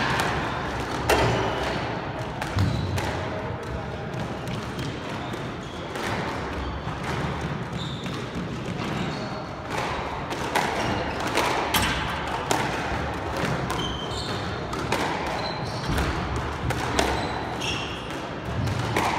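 Squash rally: the hard rubber ball smacking off racquet strings and the court walls at an irregular pace, with sneakers squeaking on the hardwood floor, echoing in the enclosed court.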